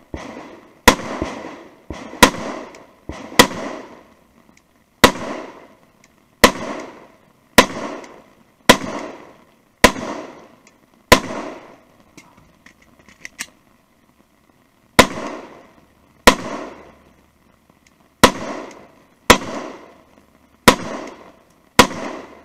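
Glock 19 9mm pistol being fired in a steady string, about one shot a second, each shot trailing an echo. About halfway through the shots stop for some four seconds while faint clicks mark a magazine change, then the firing resumes.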